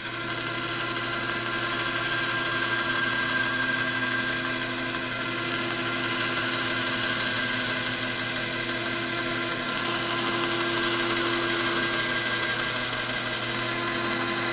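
Rikon bandsaw running steadily, its narrow blade cutting straight kerfs with the grain into the end of a hardwood board for through dovetails.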